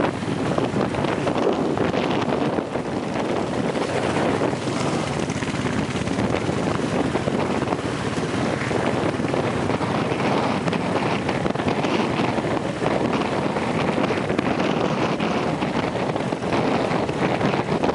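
Wind buffeting the microphone of a camera held on a moving motorcycle, a steady rushing noise with the motorcycle's engine and road noise beneath it.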